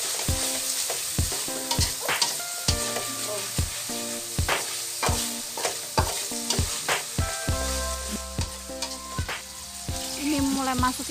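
Spatula strokes scraping and knocking against a stainless-steel wok, about two a second, as salted squid and shallots are stir-fried, over the steady hiss of frying oil.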